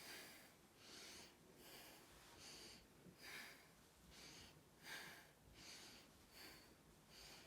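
A person breathing deeply through the mouth, each breath in and each breath out a faint soft hiss, repeating evenly about twice a second: breathing on request for lung auscultation.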